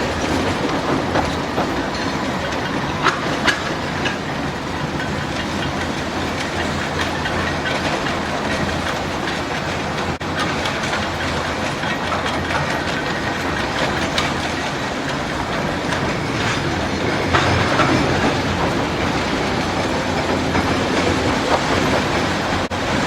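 Unmanned mining-railway train of wagons running along the track. A steady rumbling clatter carries scattered sharp knocks from the wheels and couplings, two of them close together about three seconds in, and it grows louder for a moment about two-thirds of the way through.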